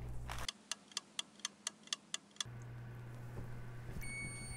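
A clock ticking about four times a second for two seconds, a ticking-clock sound effect over the oven timer's countdown. Near the end, the Frigidaire wall oven's timer starts a steady high beep as it reaches zero.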